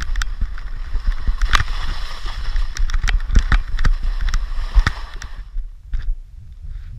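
Skis scraping and chattering over hard snow at speed, with many sharp scrapes and knocks and a heavy rumble of wind on the camera microphone. The scraping hiss drops away about five seconds in, leaving mostly the low wind rumble.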